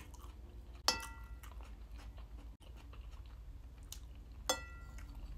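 A metal spoon clinks twice against a ceramic bowl, about a second in and again near the end, each clink ringing briefly. Soft chewing sounds are heard between the clinks.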